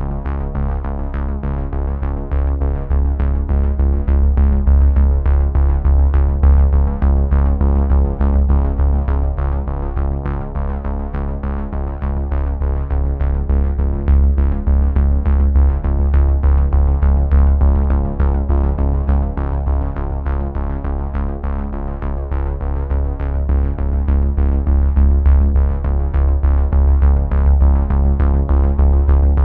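Background music: synthesizer track with a steady beat and a heavy bass line.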